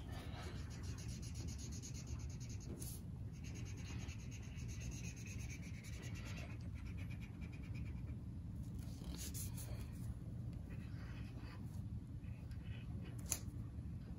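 Crayola marker tip scribbling on paper while an area is coloured in black: a fast, continuous scratching for about the first six seconds, then fainter separate strokes. A steady low hum runs underneath.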